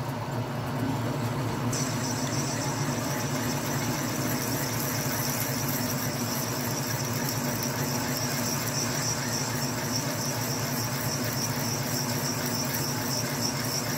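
A drill bit driven by a machine, boring into metal: a steady low running hum, joined about two seconds in by a steady high whine from the cut as the bit feeds toward its tape depth mark.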